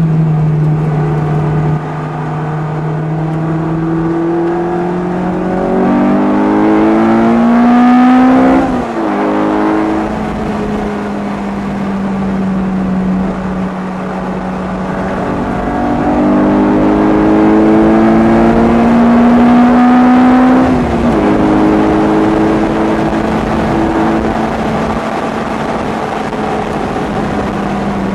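Lotus Elise Type R engine heard on board while lapping a circuit: running steadily, rising in pitch twice, about a third of the way in and again past halfway, each rise ending in a sudden drop, over a steady rushing noise.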